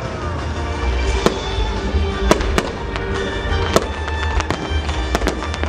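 Fireworks display: aerial shells bursting in irregular sharp bangs, several close together in the second half, over music playing throughout.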